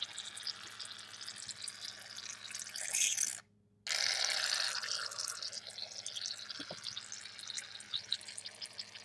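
Aerosol can of shaving cream spraying foam into a plastic tub: a hissing, sputtering spray that comes and goes in spurts. The sound drops out to silence for about half a second a little over three seconds in.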